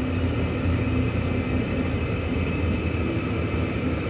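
Interior of a MAZ-216 articulated city bus driving along: a steady low engine and road rumble with a faint high whine over it.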